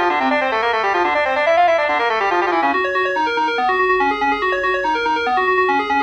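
Instrumental music: a keyboard instrument playing fast runs of notes, which give way about halfway through to separate stepping notes.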